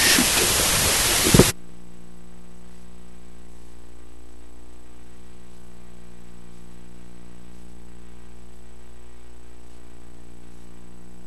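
A loud hiss that cuts off suddenly with a thump about a second and a half in. What is left is a steady buzzing electrical hum: dead air in the broadcast during the commercial break.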